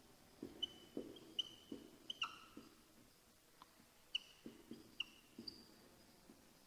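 Faint writing on a board: soft scratchy strokes broken by several short, high squeaks.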